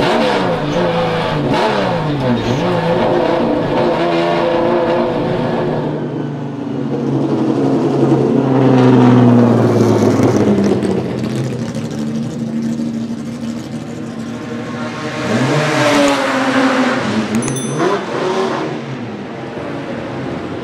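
Ford Capri RS3100 touring car's Cosworth GAA V6 racing engine heard from inside the cockpit, its revs repeatedly rising and falling through gear changes. About six seconds in, the sound changes to the engine heard from outside at low speed, with further rises in revs.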